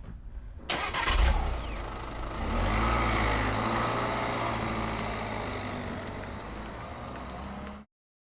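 A sudden loud rush with high falling whistles, settling into a steady low mechanical rumble that eases slightly and then cuts off abruptly near the end.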